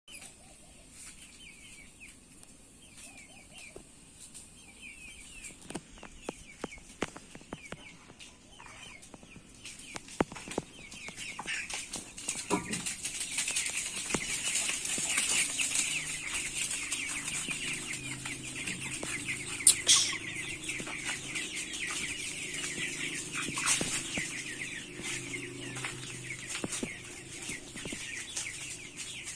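A flock of broiler chickens clucking and calling, many short overlapping calls that grow denser and louder about twelve seconds in, over a steady high hiss.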